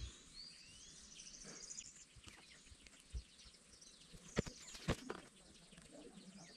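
Birds chirping with quick high rising and falling calls and a short trill, over quiet outdoor ambience. A few sharp clicks come through, the two loudest about half a second apart a little past the middle.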